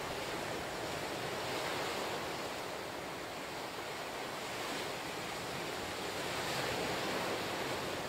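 Ocean surf breaking against lava rocks and washing up a sandy beach: a steady rush of water that swells twice as waves come in.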